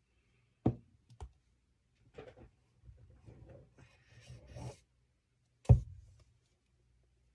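Unboxing handling noises from the iPad's cardboard box and packaging: two sharp knocks, then a couple of seconds of rubbing and rustling, and a louder knock near the end as the box is set down or struck.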